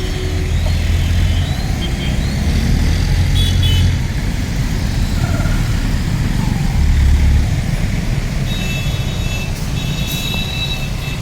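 Heavy road traffic, with car and truck engines running in a continuous low rumble. A high steady tone, like a vehicle horn or alarm, sounds on and off for a couple of seconds near the end.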